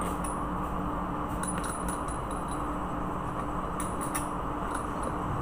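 Steady machinery hum, with a few faint, light metallic clinks from steel fuel pump parts being handled.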